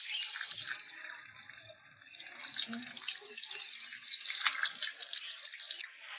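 Water running from a kitchen tap into a sink, splashing as something is rinsed under it; the flow stops near the end.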